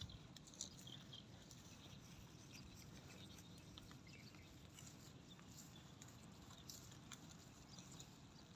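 Near silence: a faint low rumble with scattered soft clicks.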